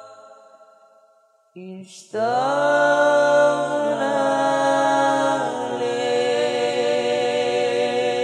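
Male voice singing an Islamic sholawat unaccompanied into a microphone, in long held notes. A phrase fades away over the first second and a half, and a new phrase comes in about two seconds in, stepping down in pitch twice.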